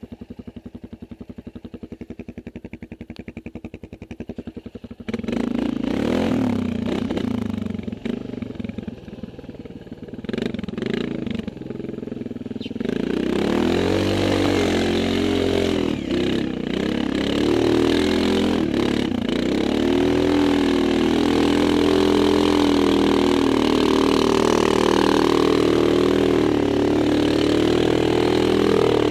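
Quad bike (ATV) engine: a quiet, even idle, then suddenly louder about five seconds in with scattered knocks and rattles. From about thirteen seconds it revs up and down repeatedly, then holds high, steady revs as it works through mud.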